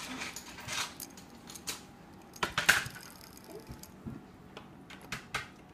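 Small plastic Lego pieces clicking and rattling as they are handled, in scattered taps with a louder cluster a little before halfway.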